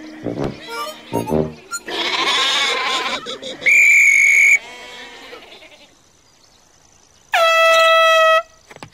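Cartoon soundtrack with sheep bleating over light music, broken by two loud held tones lasting about a second each: a high one about four seconds in and a lower, horn-like one near the end.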